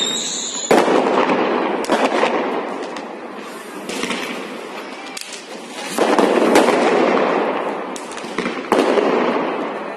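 Diwali fireworks and firecrackers going off: several sharp bangs, over long stretches of dense crackling that swell and fade.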